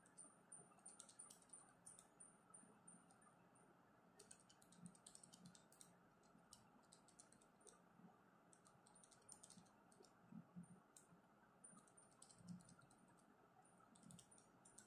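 Faint clicks of calculator keys being pressed in quick runs of several presses, with short pauses between runs.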